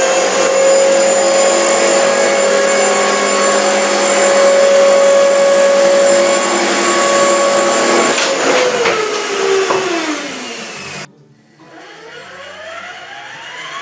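A motor-driven bladed rotor running loud and steady with a whirring hum, its blades scraping. About eight seconds in it spins down with falling pitch and stops abruptly; a fresh spin-up then begins, its whine rising steadily in pitch.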